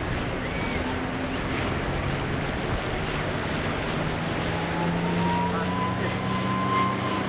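P-51D Mustang's Packard Merlin V-12 engine droning high overhead through an aerobatic manoeuvre, faint under steady wind and surf noise. The engine note comes through more strongly, with a slowly rising whine, from about halfway through.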